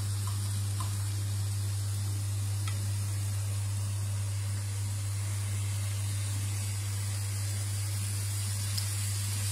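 Diced guanciale sizzling gently as it browns in a frying pan, a steady even hiss. Under it runs a steady low hum, the loudest part of the sound.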